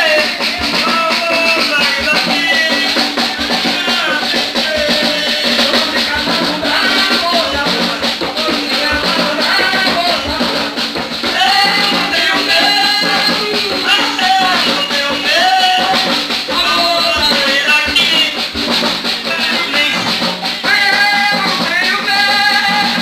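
Terecô ritual music: a man singing through a microphone over tall hand drums and shaker rattles keeping a steady beat.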